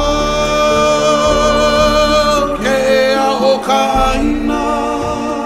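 Background music: a singing voice holding long, gliding notes over an instrumental accompaniment.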